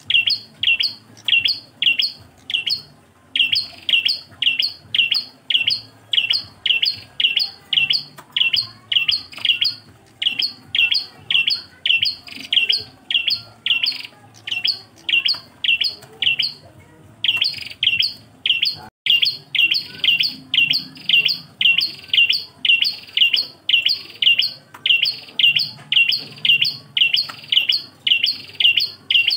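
Ashy tailorbird (prenjak klawu) repeating a single sharp chirp over and over, about three a second, with a few brief pauses.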